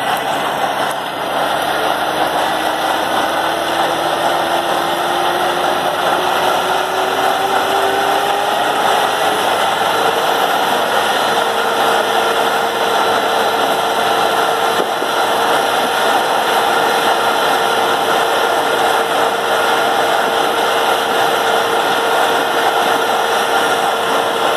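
Tractor engine running steadily with a large square baler hitched on, and a whine that climbs slowly in pitch over the first ten seconds or so, then holds steady.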